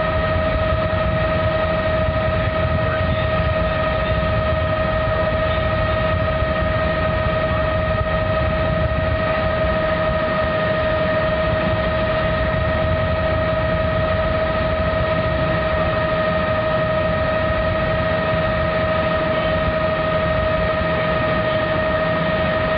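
Helicopter in flight: a steady low drone with a constant high-pitched whine on top, unchanging throughout.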